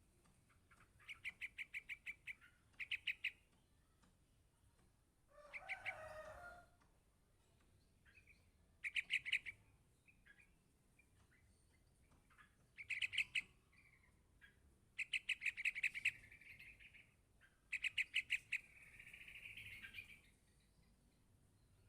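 Yellow-vented bulbul chick calling for its parent: repeated bursts of rapid, high chirps, each burst a second or so long, with short pauses between. A lower, harsher call sounds once about six seconds in.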